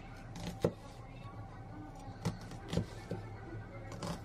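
Kitchen knife slicing an onion on a wooden cutting board: four short knocks of the blade striking the board, unevenly spaced.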